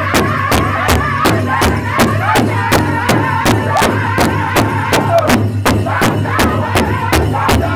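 Powwow drum group singing in unison over a large shared bass drum, all the drummers striking it together with padded sticks in a steady beat of about three strokes a second, with high, wavering voices.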